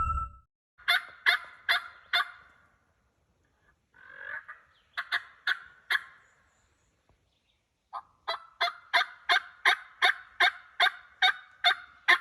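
Series of turkey yelps, sharp raspy notes evenly spaced about three a second: four at first, a few more in the middle, then a longer run of about a dozen.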